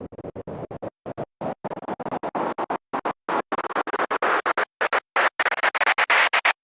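Stuttering bursts of hissing static noise, chopped on and off irregularly several times a second. The bursts turn from dull to bright and hissy as they go on.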